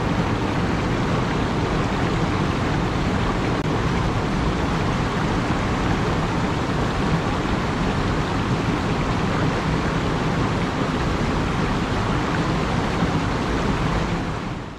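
Mountain stream running over rock ledges into a pool: a steady rush of flowing water that fades out near the end.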